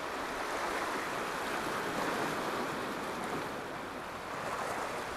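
Sea surf washing against shore rocks: a steady rushing wash that swells a little about two seconds in.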